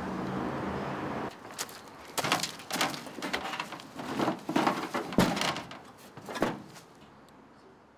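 A person crawling into a tumble dryer's drum: a run of irregular bumps, knocks and scuffs against the metal, dying away near the end.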